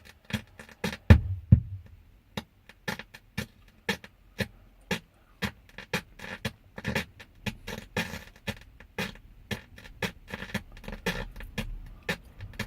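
Music with a sharp, regular beat, about two to three hits a second, playing from a Pumpkin car stereo head unit that has a fault making its sound pop and cut out.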